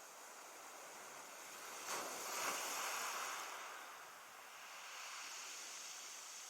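Surf on a beach: a wave breaks about two seconds in and washes up, then fades back into the steady wash of the sea.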